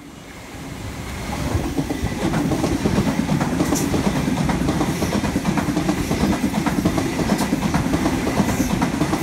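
Sydney Trains double-deck electric passenger train running past at close range, its wheels clicking rhythmically over the rail joints. The rumble builds over the first second and a half, then holds steady and loud.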